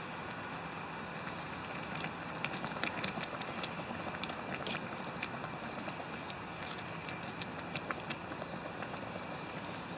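A metal spoon stirring rice, chicken and shrimp in a steel canteen cup, with small clicks and scrapes against the cup from about two seconds in until near the end. Under it is the steady hiss of a small gas canister stove keeping the cup at a simmer.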